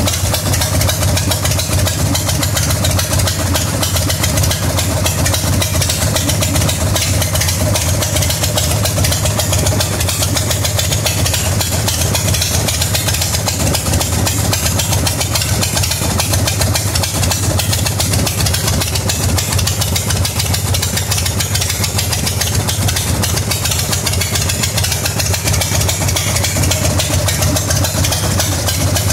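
Harley-Davidson Shovelhead V-twin engine idling steadily, with a fast, even beat of firing pulses.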